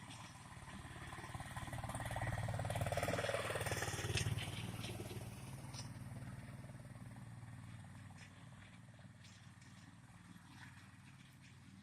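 Homemade tractor's Honda GX single-cylinder petrol engine running, growing louder to a peak about three to four seconds in and then fading away.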